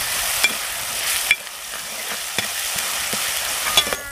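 Sliced onions, ginger, garlic and green chillies sizzling in hot oil in a clay chatti pot while a steel ladle stirs them, with scattered light scrapes and taps of the ladle against the pot. The sizzle is loudest at first and eases a little about a second in.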